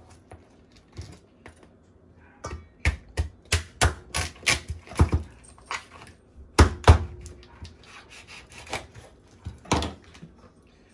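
Chef's knife cracking through a boiled lobster tail's shell and knocking on a wooden cutting board: a long run of sharp cracks and knocks, loudest about seven seconds in.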